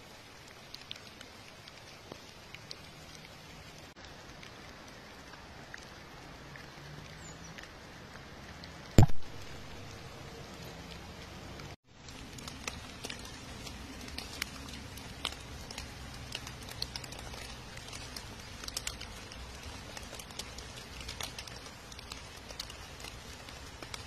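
Rain pattering on a river and on wet fallen leaves, an even hiss with scattered ticks of single drops. A single sharp knock sounds about nine seconds in, and there is a brief dropout just before twelve seconds, after which the drops tick more often.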